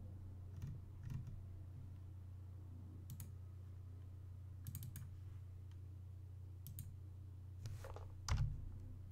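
Scattered computer mouse clicks, a few in quick succession around five seconds in, over a steady low hum; a soft thump near the end.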